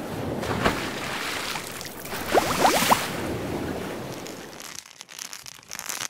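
Ocean-wave and water-splash sound effect: a rushing wash that swells, peaks with a few short rising, bubbly tones, then fades into uneven crackly spatters and stops suddenly.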